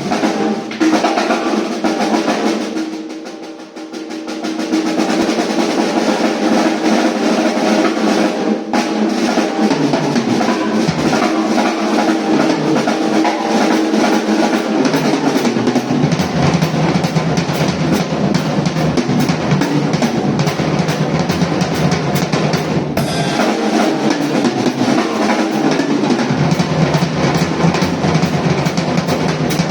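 Handmade Gabriel Drums drum kit being played: fast snare rolls that dip away about three seconds in and build back up, with sharp accents near nine and twenty-three seconds and heavier low drums joining in the second half.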